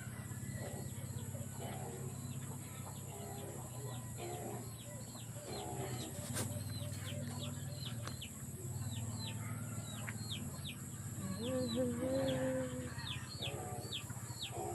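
Birds chirping: short, high, falling chirps repeated two or three times a second, with low clucking notes and one longer call about eleven seconds in.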